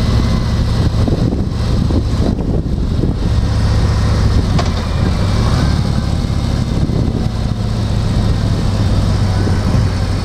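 Car running, heard from inside the cabin: a steady low hum of engine and road noise.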